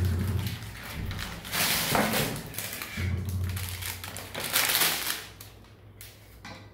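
Plastic film on a new toilet seat crinkling and rustling as the seat is handled and set on the ceramic toilet, with a few light knocks.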